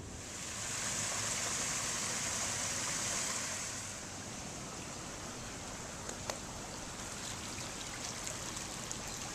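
Steady rushing hiss of running water, louder for the first few seconds, with a few light ticks later on.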